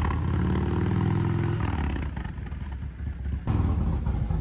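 Harley-Davidson motorcycle's V-twin engine running as the bike rides slowly past, a steady low note for about a second and a half that then fades away.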